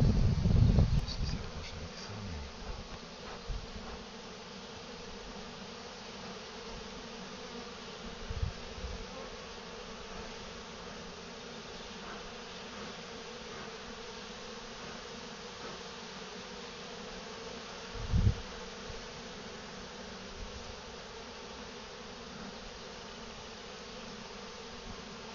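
Honeybees buzzing steadily in a continuous hum around an opened hive. A low rumble fades over the first couple of seconds, and there are a few dull bumps, the loudest about 18 seconds in.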